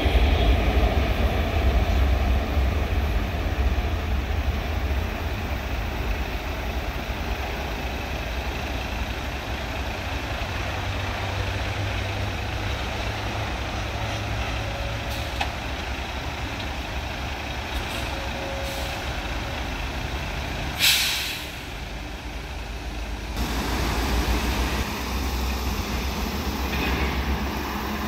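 Steady rumble of road traffic, opening with a Seoul Line 4 electric train on the viaduct fading away over the first few seconds. About two-thirds of the way through comes one short, sharp air-brake hiss from a heavy road vehicle.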